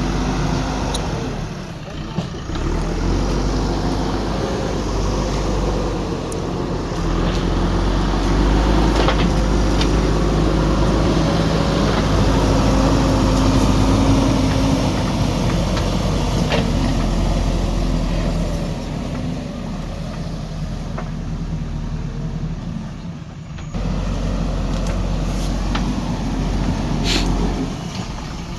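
Diesel engine of a JCB 3DX backhoe loader running under working load, its pitch rising and falling as it works, with a few sharp knocks.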